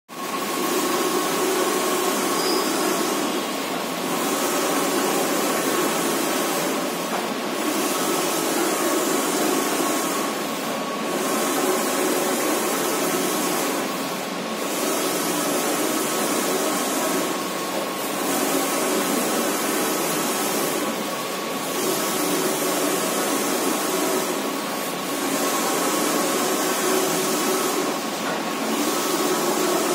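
Wide-format flex banner printer running: the print-head carriage sweeps across the flex in passes about every three and a half seconds, each a hissing whir with a brief pause at the turn, over a steady high whine.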